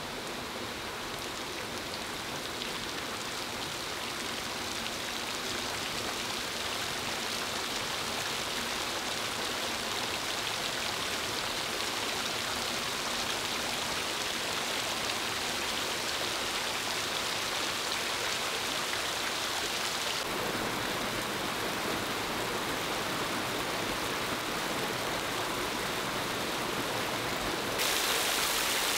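Artificial rain: water pouring from holes in overhead bamboo tubes and pattering down in a steady rain-like shower. It builds over the first few seconds, its tone shifts abruptly about 20 seconds in, and it grows louder near the end.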